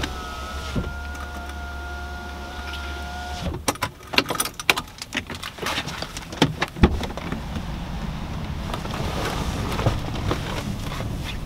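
A BMW's power window motor runs with a steady whine and low hum for about three and a half seconds, then stops. After it comes a rapid string of clicks and knocks with rustling as things are handled inside the car.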